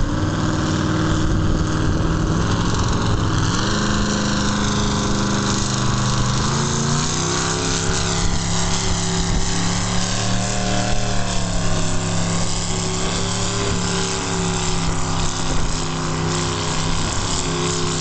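Modified pulling tractor's engine under full load hauling a weight-transfer sled. Its revs rise in two steps over the first several seconds, then hold high and steady with a brief dip midway.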